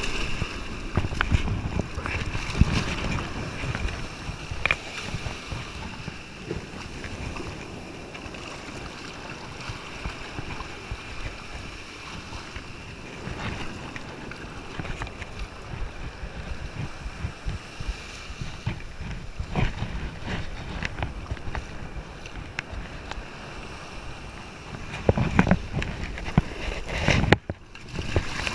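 Shallow surf washing and splashing around a large stingray as it is handled in the wash, with wind buffeting the microphone in gusts that grow heaviest near the end.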